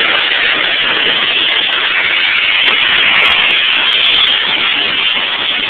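High-pressure car-wash wand spraying water onto a car's bodywork: a steady hiss.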